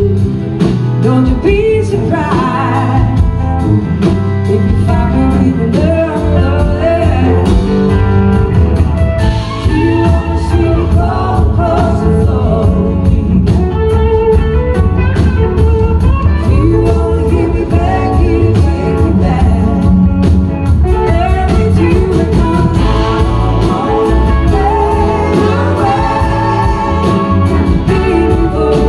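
A live blues-rock band performing a slow song, with a woman singing lead over electric guitars and drums.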